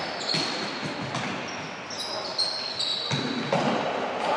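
Athletic shoes squeaking and footfalls knocking on a sports-hall court floor as players run and cut during play, with echo from the large hall. The squeaks are short and high-pitched and come many times.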